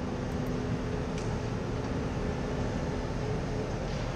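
Volvo demolition excavator's diesel engine running steadily, a low hum with a faint steady tone over a low rumble.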